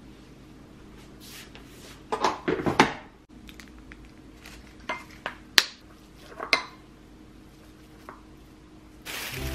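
Wooden spoon scraping and knocking against bowls as food is mixed: a cluster of scrapes and knocks on a glass bowl about two seconds in, then a few sharp taps on a ceramic bowl later on.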